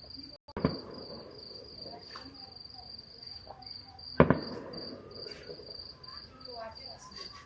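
Two sharp firework bangs from distant Diwali fireworks, a smaller one about half a second in and a louder one about four seconds in, each with an echoing tail. Steady cricket chirping runs underneath.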